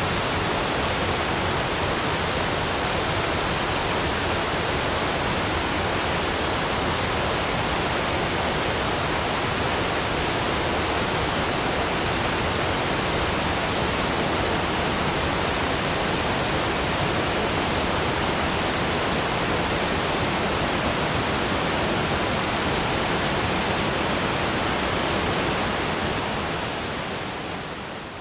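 Steady, even rushing noise like a waterfall, with no distinct events, fading out over the last two seconds.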